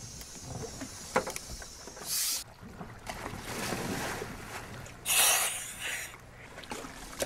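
A diver dropping off a boat into the sea: a short splash about two seconds in and a louder splash about five seconds in, over a steady background of wind and water.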